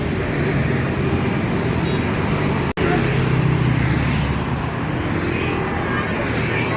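Bus engine running close by amid road traffic, a steady low drone that briefly cuts out about halfway through.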